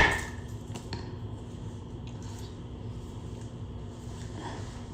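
Low, steady room noise with a few faint small ticks, just after a sharp knock at the very start.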